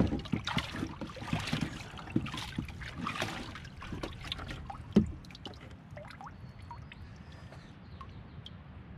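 Water sloshing and splashing in a plastic tub as a sluice box section with a Sawtooth Mat is worked in it to wash the gold concentrates off, during a sluice cleanout. One sharp knock about five seconds in, then water trickling and dripping off the lifted section.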